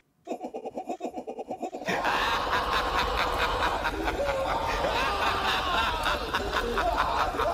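A rapid, stuttering, high-pitched laugh of about eight pulses a second. About two seconds in it gives way to a loud, dense jumble of laughter and noise that runs on.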